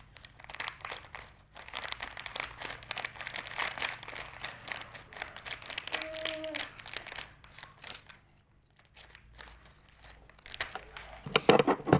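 Scissors snipping through a plastic snack pouch, with dense crinkling of the wrapper for about eight seconds. Then a quieter stretch, and a brief loud burst near the end.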